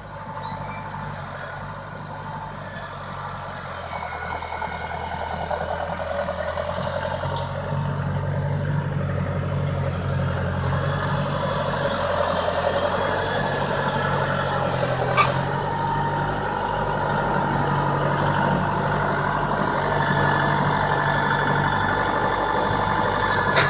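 Tractor engine running steadily, growing louder as it draws near, with one sharp click about two-thirds of the way through.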